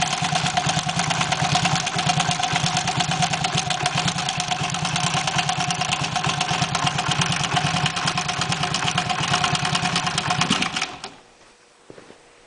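An engine running steadily at idle, the engine whose unusual noise is in question, then shut off about eleven seconds in, the sound cutting off suddenly.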